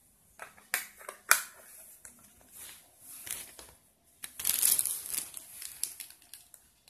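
Clear plastic bag crinkling and rustling in irregular bursts as it is handled, loudest a little past the middle.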